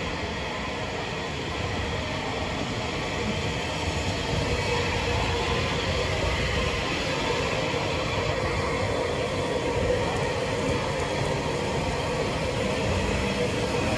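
Bulleid West Country class steam locomotive 'City of Wells' moving slowly tender-first during coupling, a steady rumbling hiss that grows slightly louder a few seconds in.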